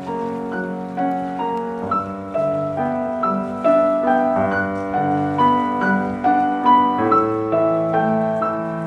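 Piano music: a slow melody of struck notes played over lower held notes.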